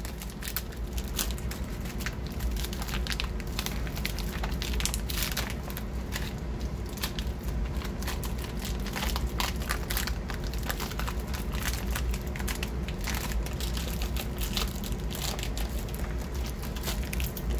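Thin plastic bag crinkling and crackling without a break as it is peeled off pistol magazines that sticky cosmoline has glued it to.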